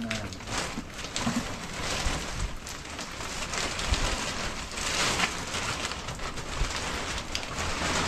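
Heavy rain falling, a steady rushing noise with many short, sharp hits scattered through it.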